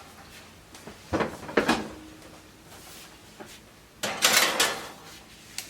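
Kitchen drawer being opened and shut as a baking tray is taken out: two sharp knocks just over a second in, then a short sliding rush about four seconds in.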